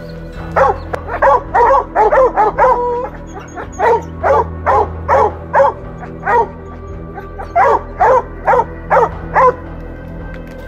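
Hunting dogs barking and baying over and over at the foot of a tree, two or more voices overlapping at times: the tree bark of dogs holding a treed mountain lion.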